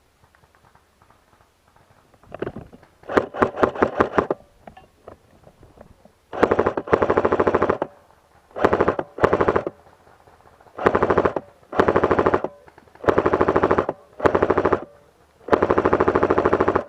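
Airsoft gun firing on full auto. A short string of rapid shots comes about three seconds in, then about seven long bursts of rapid fire follow one after another.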